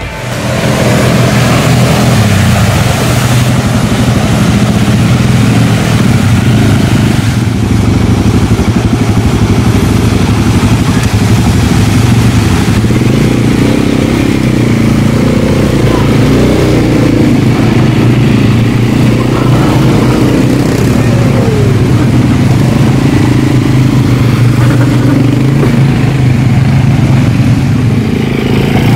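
ATV engine running steadily as it is ridden, a continuous loud drone.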